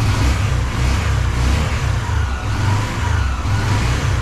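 Yamaha YBR125's single-cylinder four-stroke engine running on fresh oil, its revs rising and falling a little. The engine is only partly warmed up, neither cold nor fully hot.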